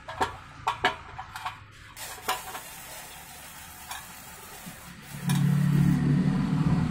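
Sharp metallic clicks and knocks as a hot drilled steel plate is handled with tongs, set down on a wooden beam, and welding rods are handled beside it. From about five seconds in, a loud, steady low hum like an engine running sets in and drowns them out.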